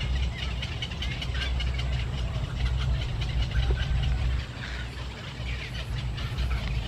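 Birds chirping over and over, many short high chirps, over a steady low rumble that eases about four and a half seconds in.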